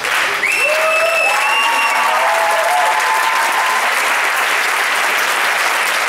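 Audience applauding, with cheering voices rising over the clapping during the first few seconds.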